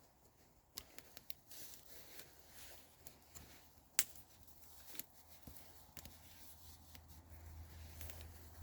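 Campfire crackling: scattered, irregular sharp pops and clicks, one louder pop about four seconds in.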